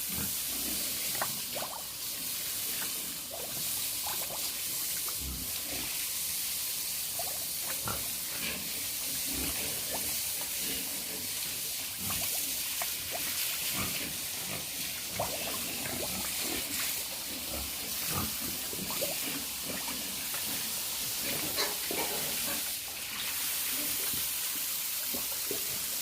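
Pigs grunting now and then over a steady hiss.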